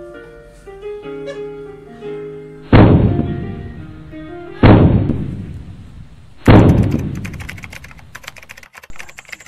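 Three heavy booms about two seconds apart, each starting suddenly and dying away over a second or two. They follow the last held notes of backing music.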